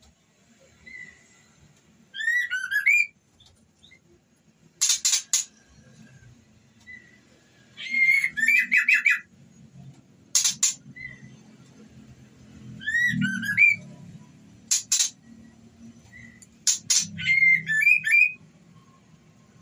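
White-rumped shama calling in a repeating cycle, every four to five seconds: two or three short harsh clicking notes, then a quick run of whistled chirps that sweep up and down. Offered as the call of a female in breeding condition, used to excite a male.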